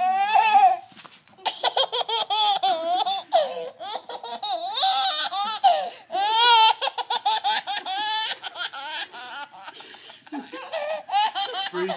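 A baby laughing hysterically: long high-pitched fits of rapid, squealing laughter, one after another with short catches of breath between.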